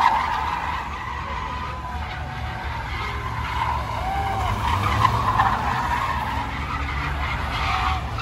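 Car tyres squealing over a steady low engine rumble, the squeal rising and falling in repeated short wails.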